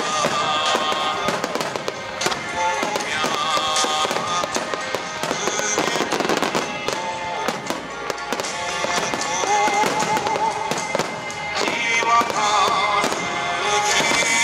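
Continuous fireworks from a finale barrage of large 10-gō (about 30 cm) aerial shells and a starmine, booming in quick succession. A song with singing plays along with them.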